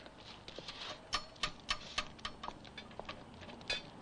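Irregular sharp metallic clinks and taps of hand tools on car parts, about a dozen in a few seconds, some ringing briefly. The loudest strikes come about a second in and near the end.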